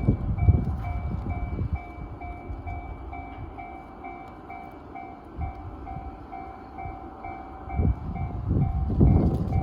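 JR standard electronic level-crossing warning bell ringing steadily, about three dings a second. Underneath is the low rumble of a passing train: loud for the first second or so, quieter through the middle, then building again near the end.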